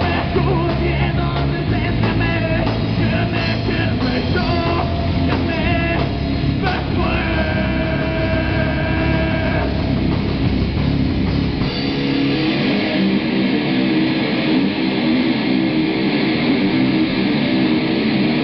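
A live rock band playing loud through small amplifiers: distorted electric guitars and bass over a drum kit. A chord is held for a couple of seconds about seven seconds in, and the low end drops away about twelve seconds in, leaving mostly guitars.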